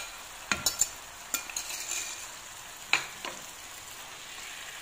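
Fried courgette slices being tipped into a pan of tomato and garlic sauce and stirred in with a wooden spatula. The pan sizzles steadily under the stirring, with several sharp knocks of utensils against the pan.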